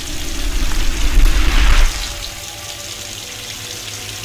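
Water sound effect: a swell of splashing, gushing water noise with a deep rumble that peaks about a second and a half in, then eases to a quieter steady wash.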